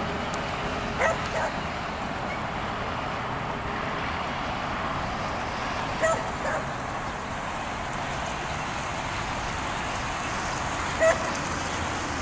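A dog barking five short times: twice quickly about a second in, twice again about six seconds in, and once near the end, over a steady outdoor background noise.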